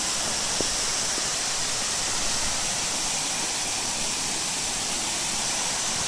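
Waterfall sliding down a steep rock slab into a natural pool: a steady rushing hiss of falling water.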